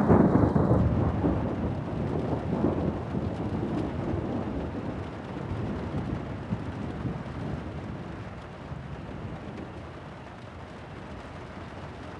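A sudden deep boom that rolls on as a rumble and slowly dies away over about ten seconds.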